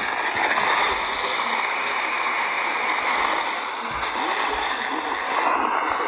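Steady hiss of radio static from a receiver tuned to a weak, distant station.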